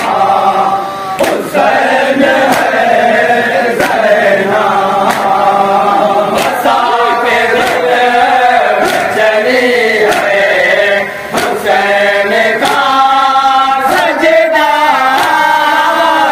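A group of men chanting an Urdu noha (a Shia Muharram lament) in unison. Sharp slaps of matam, mourners beating their chests, keep time about once every second and a bit.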